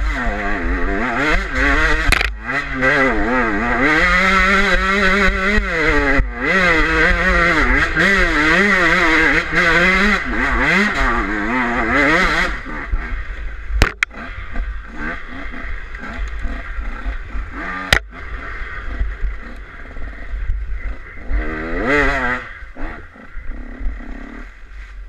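KTM EXC enduro motorcycle engine revving up and down as it is ridden hard over a trail, with wind rumble on the microphone. About halfway through the engine eases off, with a couple of sharp knocks, then revs up briefly once more near the end.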